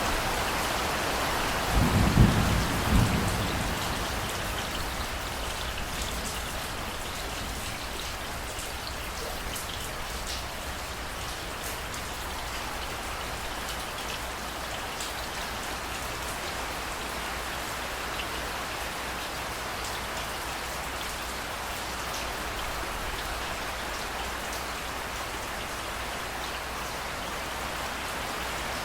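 Steady rain falling in an even hiss with scattered drop ticks. A clap of thunder comes about two seconds in, a few sharp low cracks over about a second.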